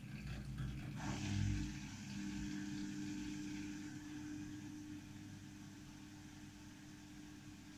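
Samsung Eco Bubble washing machine in its spin cycle: a steady hum from the motor and spinning drum, with a low thud about a second and a half in.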